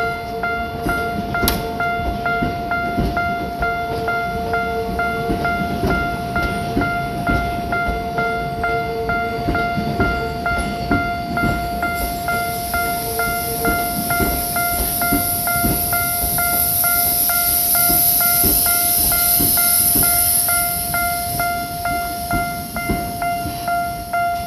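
Japanese railroad crossing alarm bell at the Ginza Line's depot crossing, ringing in a steady, evenly repeating clang. About halfway through, a Ginza Line train passes over the crossing, its running noise swelling and then fading near the end.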